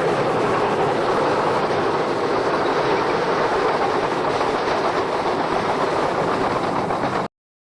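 Train running on the rails: a steady rush of noise with no whistle tone, cutting off abruptly near the end.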